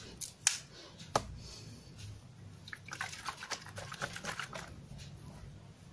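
A plastic seal being handled and peeled on a spray bottle's nozzle: a few light clicks, then a run of soft crackling crinkles through the middle.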